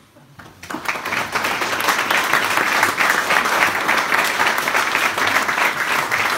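An audience starts applauding about half a second in and keeps clapping steadily.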